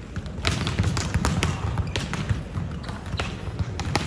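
Volleyballs being struck by hands and arms and bouncing, in many sharp, irregular slaps from several pairs of players passing at once, over a steady low crowd rumble.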